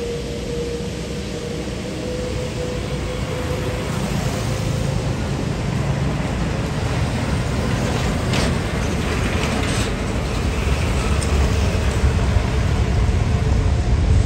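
Jet airliner engine noise: a low, steady rumble that grows slowly louder, with a steady tone that dips slightly in pitch near the start.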